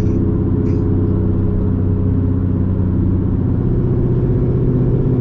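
Chevrolet Camaro's V8 engine running steadily at cruising speed with road noise; the engine note shifts slightly about three seconds in.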